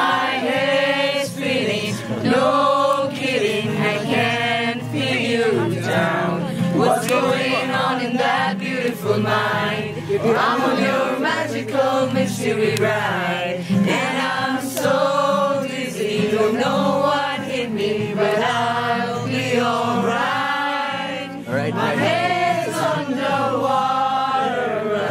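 A group of young men and women singing together in chorus, with an acoustic guitar accompanying them.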